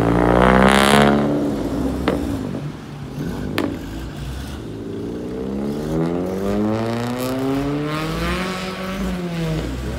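A modified Vauxhall Astra Mk5 accelerates close past on a wet road. Its engine note peaks and then drops away about a second in. Two sharp clicks follow, then another vehicle's engine note climbs steadily for several seconds and falls off just before the end.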